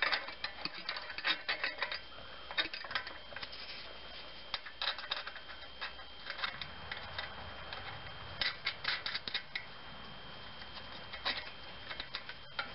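Ratchet wrench clicking in short runs of quick ticks, several times over, as the nuts on a U-bolt exhaust pipe clamp are tightened down.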